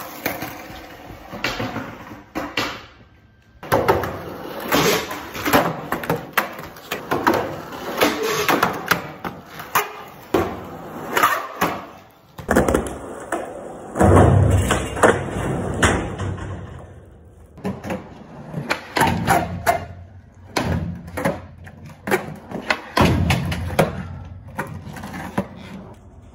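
Skateboard wheels rolling on a smooth concrete floor, with repeated sharp pops and clacks of the board from flatground tricks and landings.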